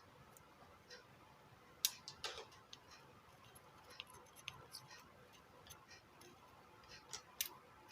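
Faint, scattered small clicks and ticks of tools and parts being handled during an electronics repair, a few sharper ones about two seconds in and near the end, over quiet room tone.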